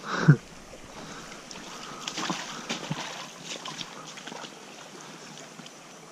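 Shallow stream water running over a stony bed, with scattered small splashes and knocks from wading in it. A brief loud sound about a quarter of a second in stands out above the rest.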